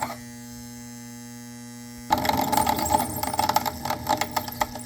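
A steady electrical hum made of many evenly spaced tones. About two seconds in, a louder irregular clattering, rustling noise joins it for about two and a half seconds, then the hum continues alone.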